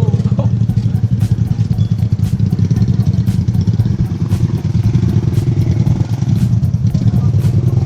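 Three-wheeled motorcycle taxi's engine running steadily with a fast pulsing beat, with scattered sharp clicks and rattles from the vehicle as it rides along.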